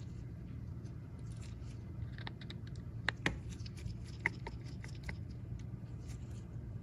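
Faint clicks and scrapes of a tri-wing screwdriver working the tiny screws inside an iPhone 12 Pro Max, with a few sharper ticks about three and four seconds in, over a steady low hum.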